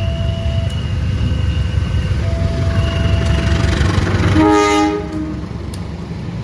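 Train running past with a heavy low rumble. About four and a half seconds in, it gives a short, loud horn blast lasting about a second. After the horn the rumble drops away.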